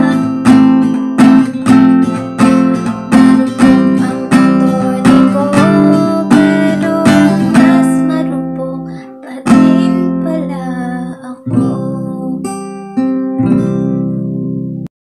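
Song with strummed guitar. The strums space out in the last seconds and the music cuts off suddenly just before the end.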